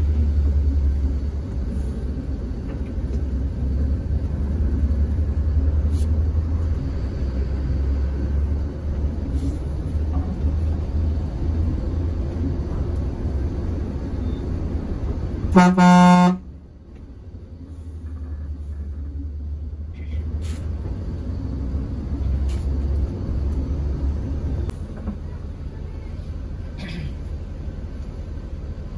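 Low steady rumble of a Mercedes-Benz OH 1626 bus under way, with one loud horn blast of about a second a little past halfway. Just after the horn the rumble drops away for a few seconds, then comes back.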